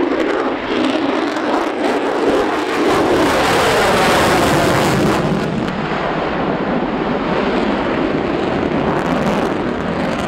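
Military jet engine noise during a low pass: a loud, steady roar that swells a little near the middle.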